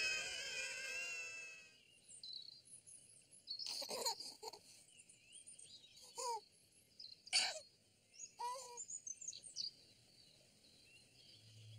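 A group of children calling out together, cutting off about two seconds in. After that, scattered bird chirps and short calls, a few of them lower and louder, over a quiet open-air background.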